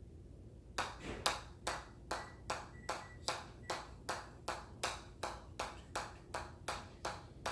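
Rapid, evenly spaced sharp clicks, about three a second, starting about a second in: the steady rhythm of a repeated exercise movement being counted off in reps.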